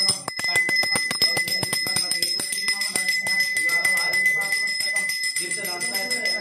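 A bell rung rapidly and continuously, its strikes coming several times a second over a steady high ring, with a man's voice chanting over it at intervals.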